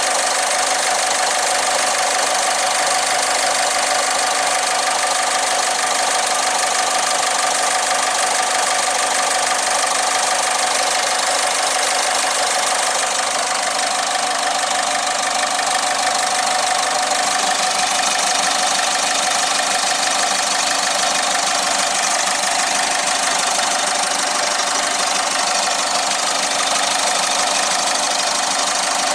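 Ford Figo's 1.4 TDCi diesel engine idling steadily, heard up close at its open oil filler neck, on an engine the owner suspects of blow-by from worn piston rings or a worn injector seal.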